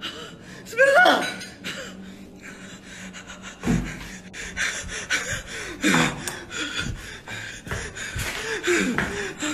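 A frightened man breathing hard and gasping, with short strained cries about a second in and again near the middle and end. Rustling from the handheld camera and his movement runs under it, with a dull thump a little under four seconds in.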